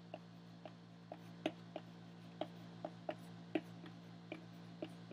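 Stick of chalk tapping against a blackboard as a word is written: faint, irregular clicks, about three a second, over a steady low hum.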